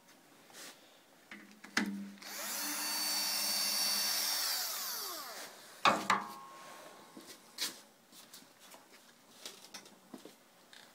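Cordless drill-driver running for about four seconds as it backs out a screw on the alternator's side cover, winding down at the end. A sharp knock with a short ring follows about six seconds in, then light clinks and rattles.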